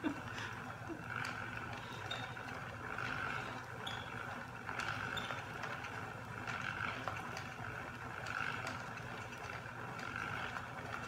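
Knit Picks hand-cranked yarn ball winder turning steadily, a plastic whirring that swells and eases every couple of seconds, while yarn feeds onto it from a spinning wooden umbrella swift.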